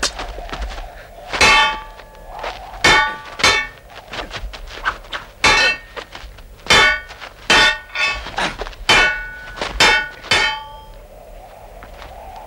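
Swords clashing in a duel: about nine ringing metal-on-metal strikes at uneven intervals, with lighter clinks between, stopping about eleven seconds in.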